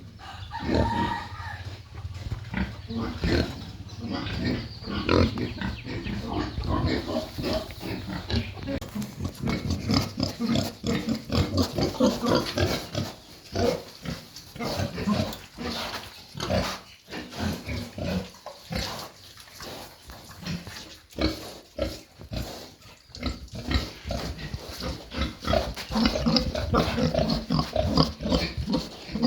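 Pigs grunting, many short calls overlapping one another.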